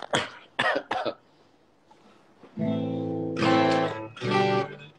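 Acoustic guitar being strummed: a few chords ring out, starting about two and a half seconds in.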